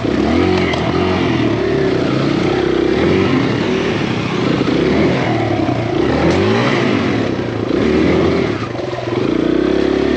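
Kawasaki KLX140RF's four-stroke single-cylinder dirt bike engine revving up and down over and over as it is ridden through deep, sloppy mud and puddles.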